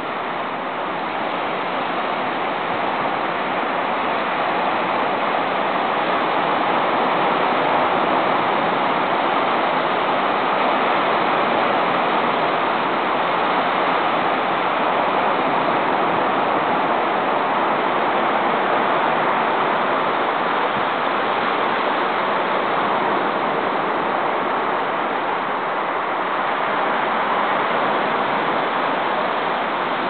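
Stormy Black Sea surf: waves breaking on a rocky shore in a continuous, steady rush.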